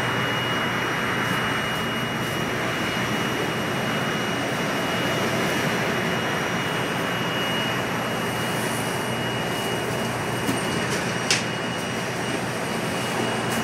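Steady engine and road noise inside a moving bus, with a thin high whine running under it and one short sharp click about eleven seconds in.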